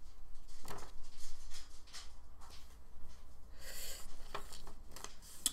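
A paper card handled and turned in the hands: a few soft rustles and brushes, a longer rustle a little past halfway, and a sharp click just before the end.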